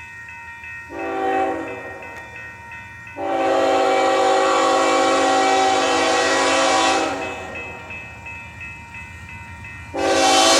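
Union Pacific diesel locomotive's air horn sounding a chord, in a short blast about a second in, then a long blast of about four seconds, with another long blast starting near the end.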